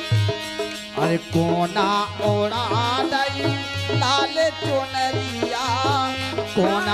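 Indian devotional folk music: a harmonium holds its notes over a steady hand-drum beat. From about two seconds in, a voice sings a gliding, ornamented melody with no clear words.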